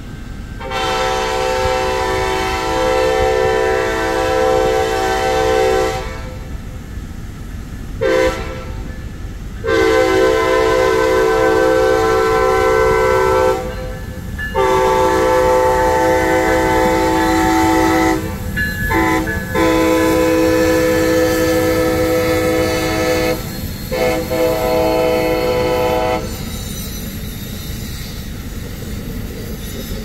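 Amtrak passenger locomotive's air horn sounding a chord of several notes in a long series of blasts: long, short, long, long, a few broken short toots, then two more long blasts. After the last blast, about four-fifths of the way through, the train's cars keep rolling past with a steady rumble.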